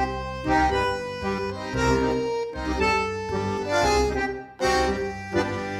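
Instrumental intro music with a melody over a repeating bass line.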